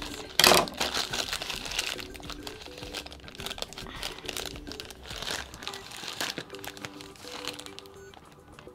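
Blind-box toy packaging being torn open and crinkled by hand, with a loud burst of crinkling about half a second in, over quiet background music.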